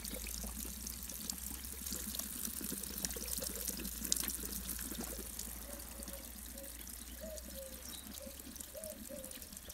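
Thin stream of water from an outdoor tap trickling and splashing onto a stone fountain basin, with small splashes and clicks in the first half as a cat laps at the stream.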